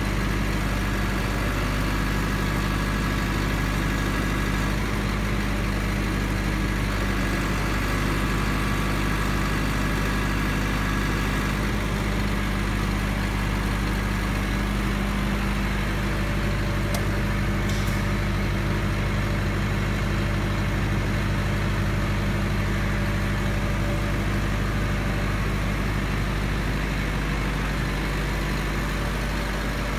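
Diesel engine of a 10 kW silent (enclosed) generator set running at a steady speed under load from a load bank, a continuous even drone. A faint click or two about seventeen seconds in.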